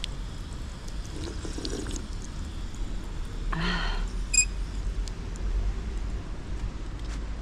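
Water trickling from an outdoor stone drinking fountain's metal spout and splashing over a hand, under a steady low rumble. A short voice sound comes just past halfway, followed by a brief high chirp.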